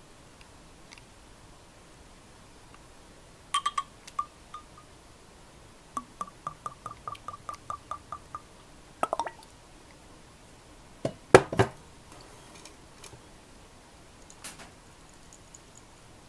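Whisky glugging from the neck of a Fuji-Sanroku bottle into a small glass over ice: a quick, even run of ringing gurgles, about six a second, for some two seconds. Glass clinks come a few seconds before it, and a ringing clink and then a few heavy knocks follow, the loudest sounds in the stretch.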